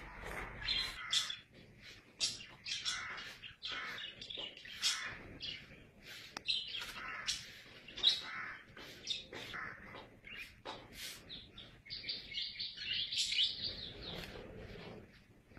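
Rapid, repeated high-pitched animal chirps and squeaks, with a denser run of them near the end.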